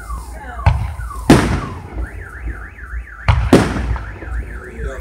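Firework shells bursting overhead, four booms with the loudest about a second in. Under them a car alarm cycles through its tones: quick falling chirps, then from about two seconds in a fast up-and-down warble.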